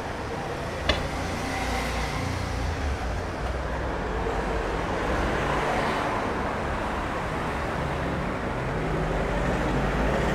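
Road traffic: cars running along the street, a steady low rumble, with one sharp click about a second in.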